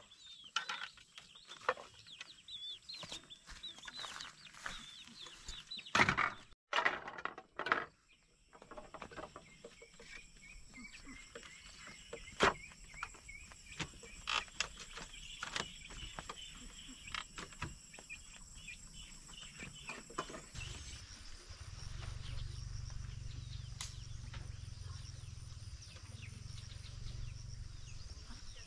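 Chickens clucking and calling, with scattered sharp knocks. A low steady rumble comes in about two-thirds of the way through.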